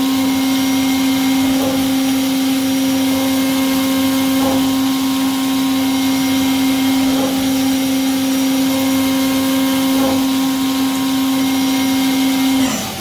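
CNC milling machine spindle running with a steady high whine while machining, with a faint recurring change about every three seconds; the whine drops in pitch and stops near the end.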